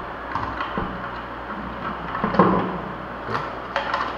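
Hard plastic cover and cable being handled and pushed into place against a plastic kayak hull: a few scattered knocks and clicks with rustling between them, the loudest knock a little past halfway.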